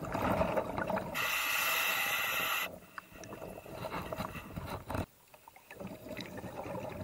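Scuba diver breathing through a regulator, recorded underwater: a loud hiss about a second in that lasts about a second and a half, with bubbling and knocking of exhaled air around it.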